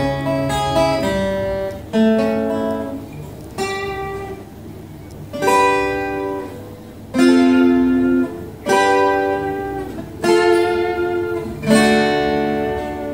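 Yamaha F310 steel-string acoustic guitar (spruce top, mahogany body) played slowly: a few quick picked notes, then a chord struck about every second and a half, each left to ring out.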